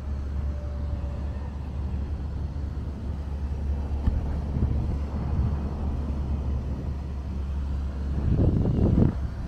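Wind buffeting a body-worn camera's microphone high up on a parasail: a steady low rumble that swells louder about eight seconds in.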